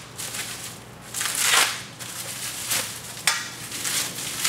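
Plastic wrapping crinkling and tearing as it is cut and stripped off a rolling shutter's base stop angle, in several rustling bursts, the loudest about a second and a half in, with a sharp click just after three seconds.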